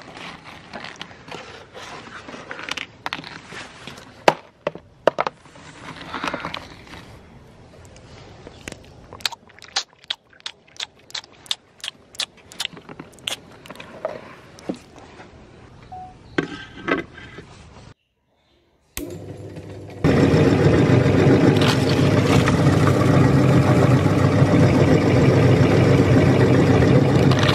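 Hard Parle-G biscuits clicking and clattering against each other and a plastic tray as a hand stirs through them, in scattered sharp taps. After a brief silence about two-thirds in, an electric meat grinder's motor starts and runs with a loud, steady hum.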